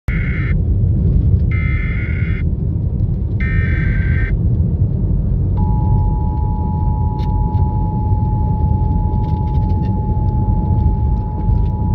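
Three short bursts of emergency-alert data tones, then from about halfway a steady two-tone alert signal, announcing a weather-service tornado warning. Under it runs the steady low rumble of a vehicle driving on a gravel road.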